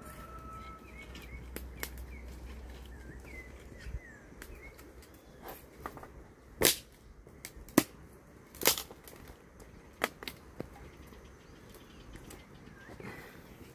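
A handful of sharp snaps scattered over a few seconds near the middle, over faint chirping of small birds.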